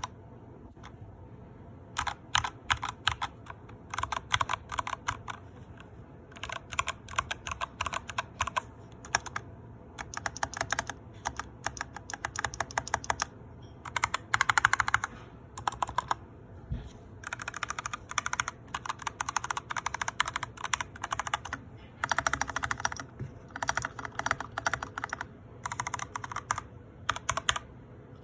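Typing on a mechanical keyboard with Kailh Box Black linear switches: quick runs of keystrokes in bursts of a second or two, separated by short pauses, with one heavier, deeper thump about 17 seconds in.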